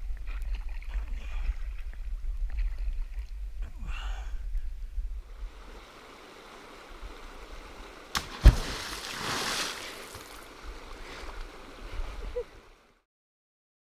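Creek water washing and rumbling against a camera held at the surface. Then, about eight seconds in, a sharp impact and a short splash as a stone thrown from the bank lands in the creek, over the faint sound of the running stream.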